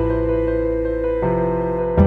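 Instrumental background music with held chords, the chord changing a little past halfway.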